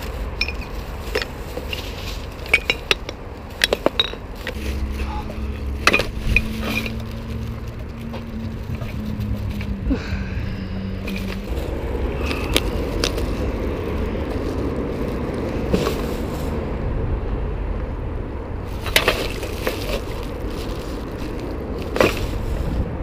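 Litter being picked up with a litter-picker grabber: a run of sharp clinks, knocks and rattles of bottles, cans and rubbish dropped into a bag. From about halfway, the steady rolling noise of a loaded baby buggy pushed over pavement, with its load rattling and a few more knocks.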